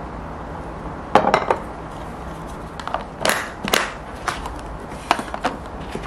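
Food containers being handled on a kitchen counter: a series of short clacks and knocks in small clusters as lids go onto stainless thermal food jars and lidded plastic lunch boxes are set down and stacked.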